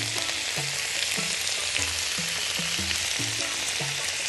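Shrimp, pineapple chunks, onions and green peppers sizzling steadily in olive oil in a frying pan.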